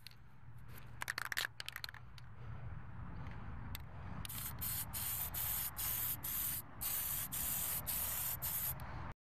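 Aerosol can of hammered-finish spray paint hissing in about ten short bursts with brief pauses between them, starting about four seconds in, after a few faint rustles.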